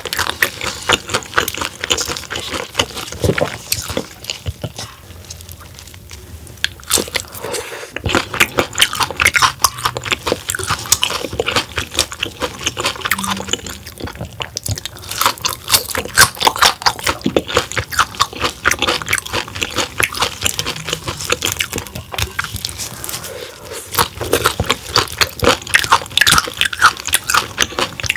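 Close-miked biting, crunching and chewing of soft-shell crab, a dense run of crisp crunches with a quieter stretch of chewing about five seconds in.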